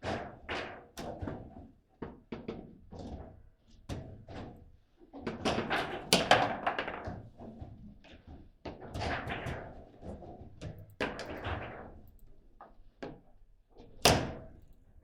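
Table football (foosball) in play: the ball knocking hard against the plastic players and the table walls in quick, irregular thunks, with a flurry of hits in the middle and one sharp, loud hit near the end.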